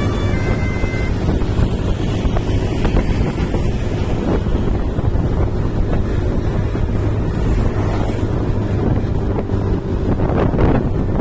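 Wind buffeting the microphone over a steady low vehicle engine drone, as when filming from a moving vehicle. A few high horn notes fade out in the first second.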